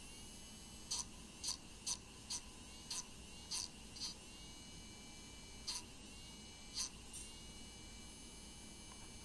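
Faulty Cheerson CX-10 micro quadcopter's one stuck brushed motor spinning its tiny propeller nonstop with a faint high whine, even though the quad is switched off: the motor is stuck on and drains the battery. About nine short sharp ticks stand out over the whine, most in the first four seconds and two more later.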